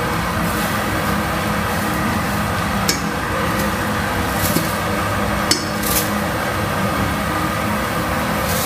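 A few sharp clicks of a spatula knocking against a frying pan, over a loud steady mechanical drone.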